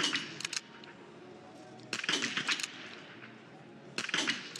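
.22 calibre biathlon rifle fired from the prone position, shots about two seconds apart, each a sharp crack followed by a short rattle of clicks.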